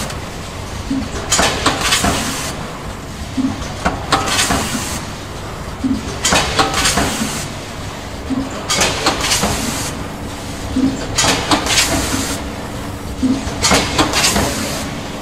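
Automatic rotary pre-made-pouch packing machine running: a burst of clatter and hiss about every two and a half seconds as it cycles through its stations, over a steady mechanical background.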